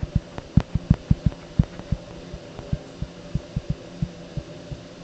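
Stylus tapping and knocking on a tablet surface during handwriting: a rapid, irregular series of dull taps, thickest in the first two seconds and thinning out after. A faint steady electrical hum runs underneath.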